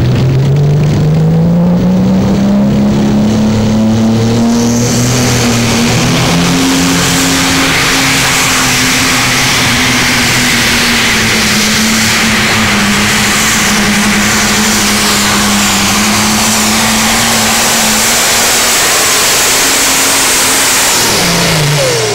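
Pro Stock pulling tractor's turbocharged diesel engine at full throttle hauling the weight sled. The revs climb over the first few seconds and hold high and steady, with a loud hiss joining in about four seconds in. Near the end the revs fall away as the tractor finishes a full pull.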